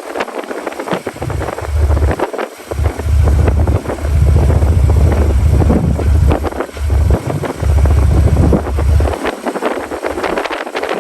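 Strong hurricane wind blowing hard. Heavy gusts buffet the microphone with a deep rumble from about a second in until near the end.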